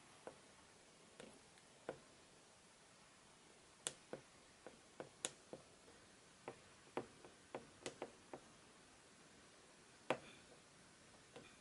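Oil pastel stick dabbing and tapping on drawing paper: a string of short, sharp taps at an uneven pace over faint room tone, the loudest near the end.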